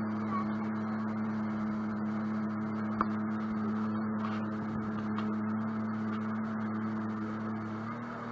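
Sea-Doo boat's engine running at a steady speed, a low even hum that shifts slightly in pitch near the end. A single sharp click about three seconds in.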